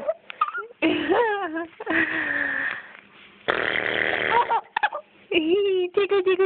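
Baby giggling and squealing in short bursts that bend up and down in pitch, with breathy, rasping stretches between them, breaking into a quick run of short laughs near the end.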